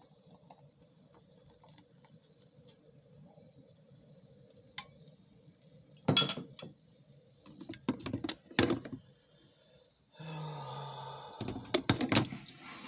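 Dishes and kitchenware being handled: a few separate knocks and clinks about halfway through, then a short steady hum lasting about a second and a half, then a quick run of clatter near the end.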